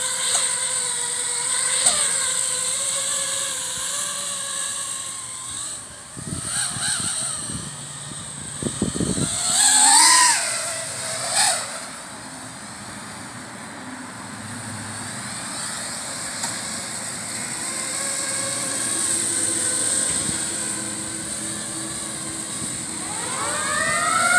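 FPV quadcopter's motors whining in flight, the pitch rising and falling with the throttle, with louder surges about halfway through. Near the end a siren starts to wind up.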